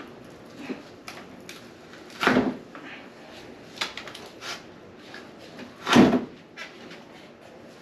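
Handling noise as the old heat-exchanger tubing is pulled out of a refrigerator cabinet: two louder knocking scrapes, about two seconds in and about six seconds in, amid lighter clicks and rattles.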